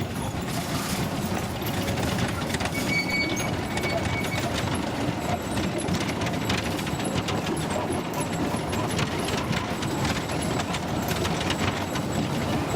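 Small trolley train of a forest tourist railway running along its track, wheels rattling with a rapid, irregular clatter of clicks.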